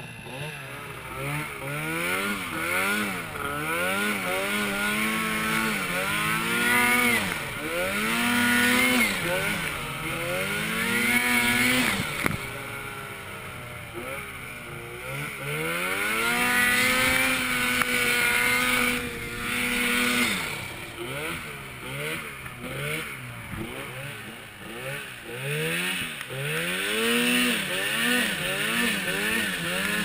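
Arctic Cat Turbo snowmobile engine under way, revving up and falling back every second or two as the throttle is worked through powder, then held at a steady higher pitch for a few seconds midway before the up-and-down revving resumes. A hiss of wind and snow runs underneath.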